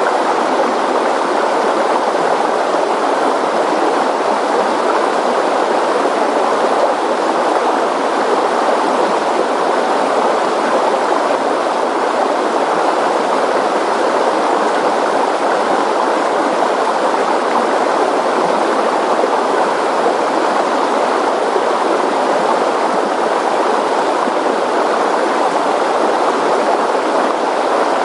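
Floodwater rushing in a swollen river: a steady, loud, unbroken rush of churning water.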